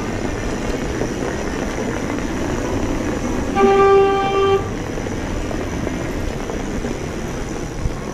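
Steady rushing wind and road noise from a moving bicycle. A vehicle horn sounds once for about a second, a little past the middle, and is the loudest thing heard.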